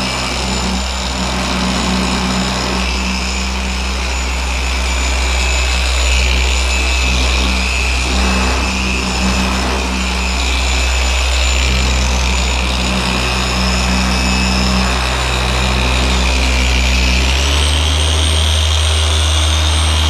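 Griot's Garage G9 dual-action random orbital polisher running steadily with a foam pad and compound on a car panel, a motor hum with a high whine over it. About seventeen seconds in it is switched to a higher speed, and the hum and whine step up in pitch.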